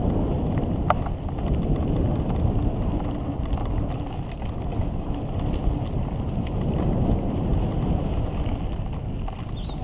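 Mountain bike rolling fast down a dirt trail: tyres rumbling over the dirt with many small rattles and clicks from the bike, and wind buffeting the microphone.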